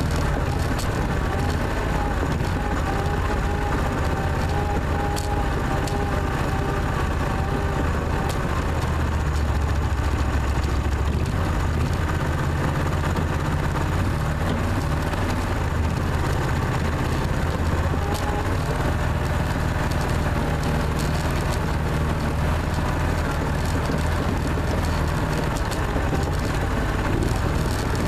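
An Argo amphibious ATV's engine running steadily as the vehicle drives slowly across river ice, heard close from on board.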